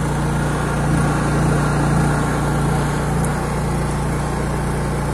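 Honda EU30is petrol inverter generator running with a steady, even engine hum that swells slightly a second or two in.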